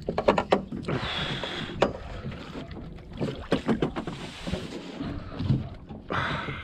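Irregular knocks, rustling and water sounds as a freshly landed carp of about four kilos is handled after the fight.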